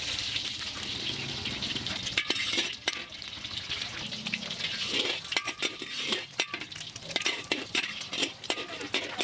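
An egg frying in hot oil in a wok, sizzling steadily, with several sharp clinks and scrapes of a metal wok spatula against the pan.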